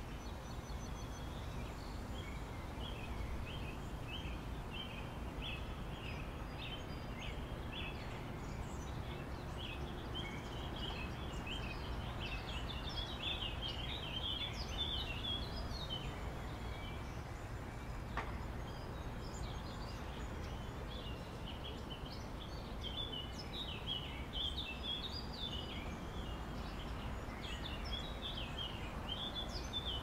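River and waterfall water rushing steadily, with birds chirping in quick runs over it, now busier, now sparser.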